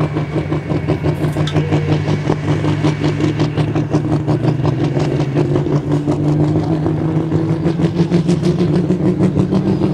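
Turbocharged diesel engine of a Pro Stock pulling tractor running at the start line, hooked to the sled. It holds a steady, pulsing note, and the pitch creeps up slightly in the second half.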